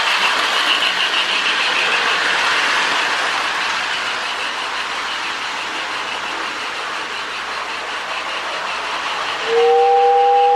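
Marx toy steam locomotive running on track, with steady electronic chuffing from the Lionel Sound of Steam board in its tender. Near the end a two-tone train whistle starts and holds.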